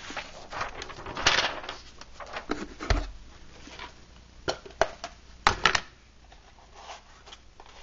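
Scattered clicks and knocks of small objects being handled on a workbench, with a brief rustle about a second in, a dull thump about three seconds in, and a quick run of clicks near the end.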